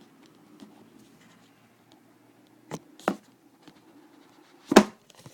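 Handling noises from a cardboard box and its packaging as the iPad is worked out of a tight-fitting box: soft scraping and rustling with a few sharp taps, the loudest knock near the end.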